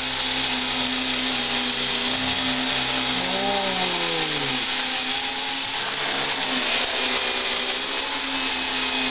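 FalKing fixed-pitch RC helicopter hovering: a steady high motor whine over the whir of the rotor blades. A little over three seconds in the rotor speed sags, its pitch falling as the throttle is eased to let it sink, then climbs back about two seconds later.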